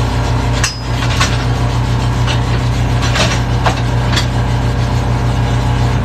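Steady low drone of a running engine, with irregular sharp knocks and scraping from hand work on a bare wheel rim as it is cleaned.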